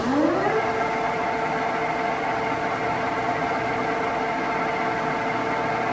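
Standard Modern engine lathe's geared headstock spinning up: a whine that rises over the first half second as the spindle comes up to speed, then runs steady with several gear-whine tones.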